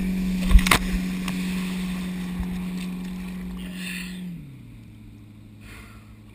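Towboat engine drone with water rushing past a wakeboard. A loud sharp thump comes about half a second in as the board hits the water, and a splash a little before four seconds as the rider falls. The drone then drops to a lower pitch as the boat throttles back.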